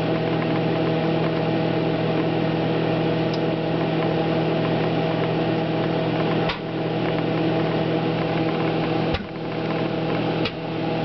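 Microwave oven running with a steady hum, while eggs heating inside burst with a few sharp pops, the loudest about nine seconds in.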